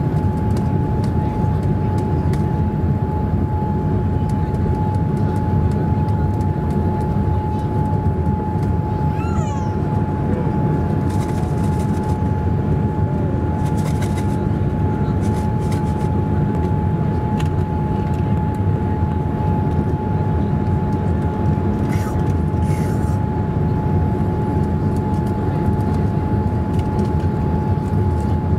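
Boeing 787 Dreamliner cabin noise during the climb after takeoff: the steady deep rush of the engines and airflow, with a steady whine running through it. A few brief clicks and a short high gliding squeak sound over it about a third of the way in.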